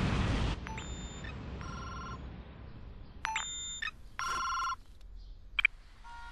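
A loud rumble cuts off abruptly about half a second in. Then a telephone rings with an electronic ringtone: short bursts of tones in two alternating patterns, repeating about every two and a half seconds. A sharp click comes near the end.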